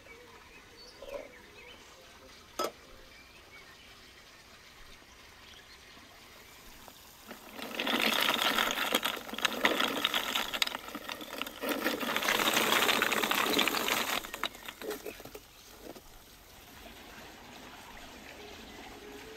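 Lumps of charcoal poured from a box into a wire-mesh barbecue, clattering in two pours of about three seconds each with a short break between. A couple of faint clinks come in the first few seconds.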